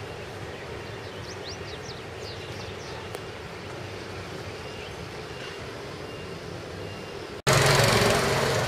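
Distant city traffic hum, steady, with a few short high bird chirps between about one and three seconds in. Near the end it cuts abruptly to louder street noise with a motorbike engine passing close by.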